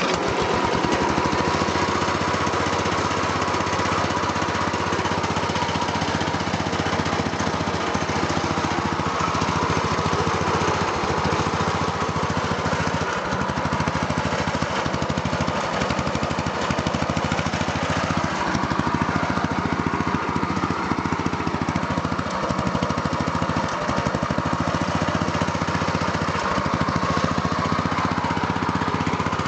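Modified Craftsman racing lawn mower's 14.5 hp engine, with cam work and a reworked exhaust, running steadily and loudly at an even speed.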